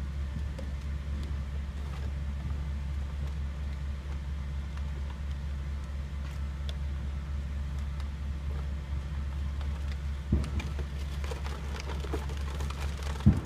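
A steady low mechanical drone, like a small engine or motor running, with two thumps, one about ten seconds in and one near the end.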